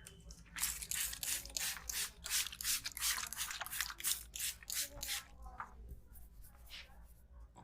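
Barber's hands working on the head and neck in a massage, quick rhythmic strokes at about four to five a second that fade to a few softer ones near the end.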